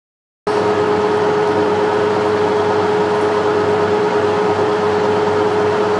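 A machine running with a loud, steady hum carrying a strong steady tone, starting abruptly about half a second in.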